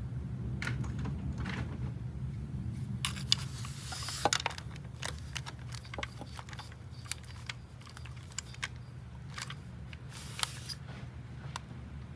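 Irregular light metallic clicks and clinks of hand tools and small engine parts being handled, over a steady low hum.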